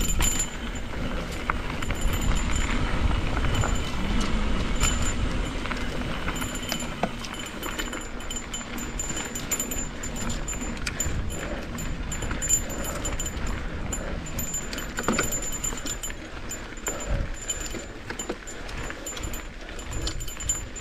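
Cannondale Scalpel full-suspension mountain bike riding a dirt downhill trail: a steady low rumble from the tyres on the ground, with frequent metallic rattles and clicks from the bike throughout.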